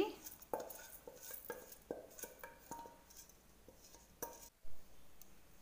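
Stainless steel bowl being scraped out with a spoon into a pressure cooker: scattered light metal clicks and scrapes, with a few brief ringing clinks of steel on steel and one sharper knock a little past the middle.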